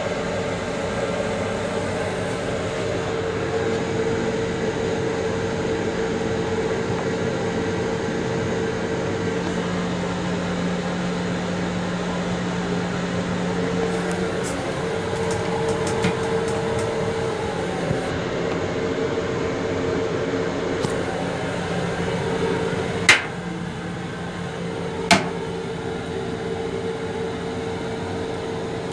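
Steady ventilation hum inside an M7 railcar restroom, with two sharp clicks about two seconds apart near the end.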